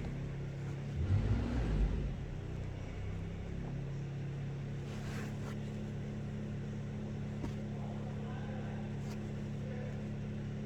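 2012 Holden Commodore engine idling steadily, with a brief louder low rumble about a second in. The engine is misfiring, traced to cylinder 2, where oil is burning around the spark plug.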